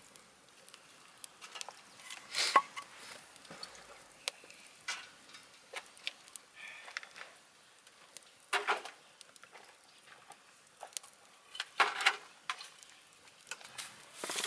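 Wood fire crackling in a wood-burning stove: scattered sharp pops and clicks at irregular intervals over a faint hiss, with a few louder pops, one about two and a half seconds in, one near nine seconds and one near twelve.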